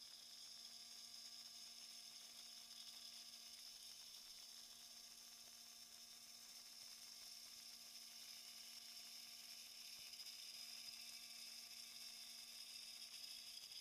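Near silence: a faint steady hum with a high hiss, unchanging throughout.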